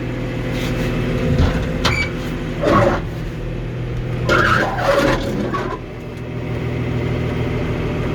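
John Deere 710D backhoe's diesel engine running steadily just after a good start, with a few short higher-pitched squeaks or clatters over it; the engine dips briefly about six seconds in and then builds back up.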